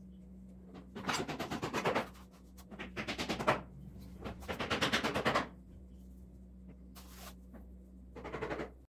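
Short bursts of rapid ticking and scraping, about four of them, as rangoli powder is spread by hand and sifted through a small steel strainer over a tabletop. A low steady hum runs underneath.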